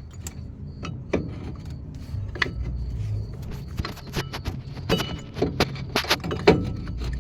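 Irregular metallic clicks and clinks of brake pads and a caliper being handled and worked into place over the brake rotor. The clicks are sparse at first and come thicker and louder in the second half.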